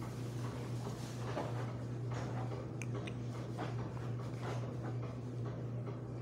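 Small dog digging and scratching at the plush fabric of a new orthopedic dog bed: irregular soft scratching rustles, over a steady low hum.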